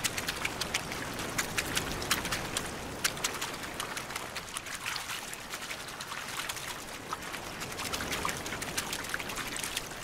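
Masses of Gulf grunion thrashing in shallow surf on wet sand as they spawn: a dense, irregular patter of small wet slaps and splashes over a steady wash of water.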